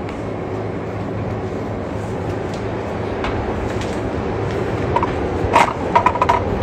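A steady low rumble that slowly grows louder. Near the end come a few sharp clicks and a quick run of short, high beeps on one pitch.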